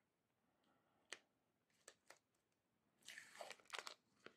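Faint handling of an acrylic diamond painting plate: a few light clicks of fingers on the plastic, then a brief crinkling rustle about three seconds in as the plastic protective film is lifted from its sticky adhesive surface.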